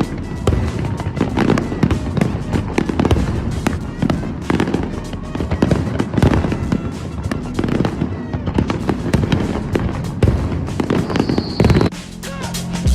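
Fireworks bursting in a rapid, dense barrage of bangs, with music playing underneath. The bangs thin out near the end.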